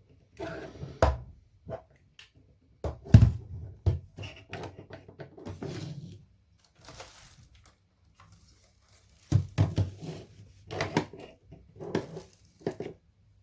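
Handling noises: irregular knocks, clicks and thuds, the loudest about three seconds in, then a lull and another cluster of clicks near the end.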